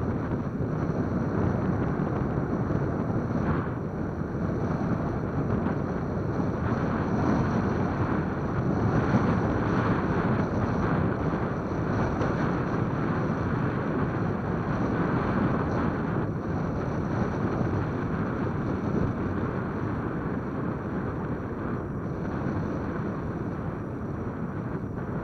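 Wind buffeting the microphone in a steady, rough rush, swelling and easing slightly.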